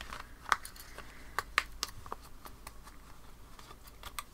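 Small handling noises as a mending loom is worked free of its holding bands: a scattered, irregular run of light clicks and taps, the sharpest about half a second in and around a second and a half in.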